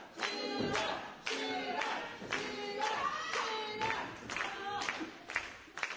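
Wrestling crowd chanting together in rising and falling calls, with sharp claps between them.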